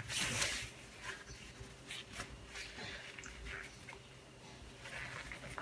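Rubber-gloved hands handling and folding a wet silk scarf: faint soft rubbing and rustling of the gloves on the damp fabric, loudest in the first half second, over a faint steady hum.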